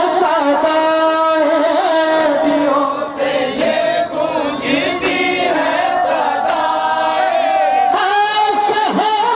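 A group of men chanting a nauha, a Shia mourning elegy, together in long held notes. A lead voice sings into a microphone with the others joining in, amplified through a public-address system.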